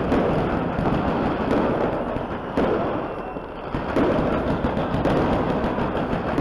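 Fireworks display at close range: a continuous dense crackling and banging from fireworks launching and bursting, with sudden louder bangs about two and a half and four seconds in.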